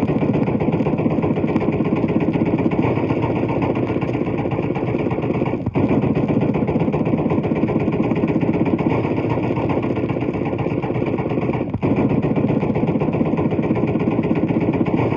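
Machine-gun fire from a 78 rpm sound-effects record: continuous rapid firing, broken by two short gaps about six seconds apart.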